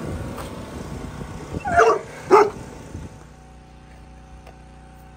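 Young Alaskan malamute giving two short barks about half a second apart.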